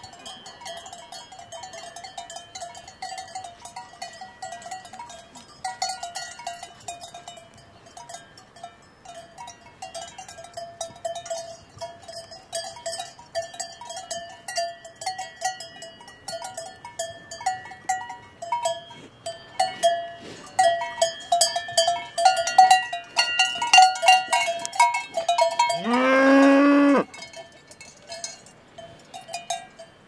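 Cowbells on grazing cattle clanking continuously with a ringing tone. A little before the end, one cow moos loudly for about a second, its call rising at the start.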